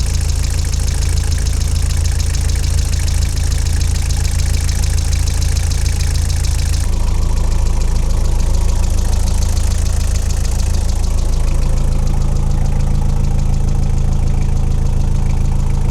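Toyota Hiace's 1KZ-TE turbo-diesel engine idling steadily with fast diesel clatter, running again on a replacement ECU. About seven seconds in the sound turns abruptly duller as the higher clatter drops away.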